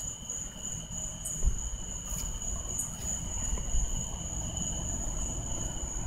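Night insects calling in a steady, unbroken high-pitched buzz, with a low rumble of movement underneath.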